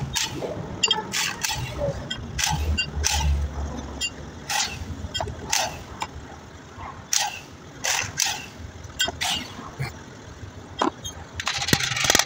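Metal hand tools and parts clinking and knocking on a chiller compressor while it is taken apart: irregular sharp metallic clanks, some ringing briefly, with a quick flurry of them near the end.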